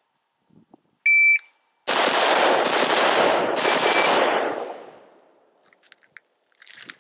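A shot timer beeps once, and about half a second later an AR-15 carbine fires a rapid string of shots. The reports run together into one continuous blast for about two and a half seconds, then fade out.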